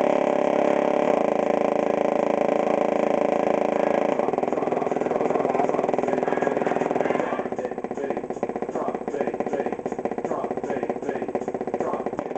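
Subwoofer playing a loud, sustained bass drop that comes across as a buzzing, distorted drone. About seven seconds in it changes to a rougher, fast-pulsing buzz.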